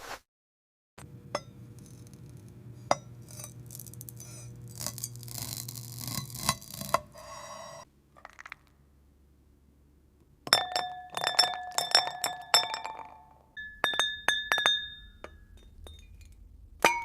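AI-generated glass ASMR sounds: several seconds of gritty scraping and crunching over a low hum, a short pause, then a run of sharp glass clinks and taps, each leaving a bright ringing tone, and one more clink near the end.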